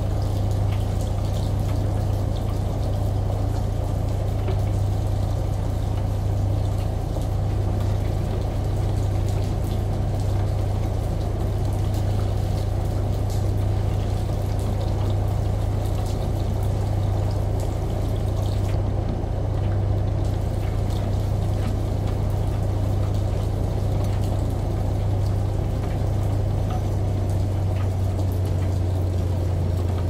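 Washing machine running with a steady low drone, layered with the even rush of running shower water and rain. The low hum shifts slightly near the end.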